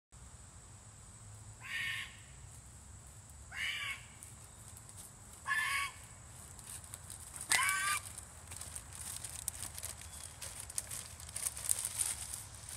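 A crow cawing four times, one short call about every two seconds. A faint crackling rustle follows in the second half.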